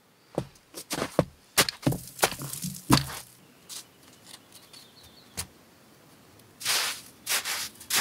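Hands digging into crusty, granular snow, making crunches and scrapes. A quick run of sharp crunches comes in the first few seconds, then a few scattered ones, then longer scraping scoops near the end.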